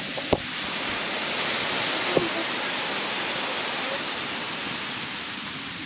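Strong wind blowing over the microphone, a steady rush of noise. There is a light knock just after the start and another about two seconds in.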